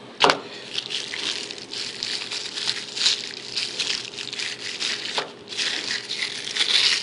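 Packaging rustling and crinkling as the microphone kit's parts are handled and unwrapped, with a sharp click just after the start and another about five seconds in.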